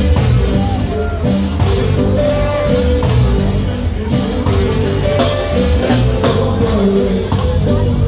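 Live reggae-ska band with amplified guitar playing through large street PA speakers, a steady beat and offbeat strokes running throughout.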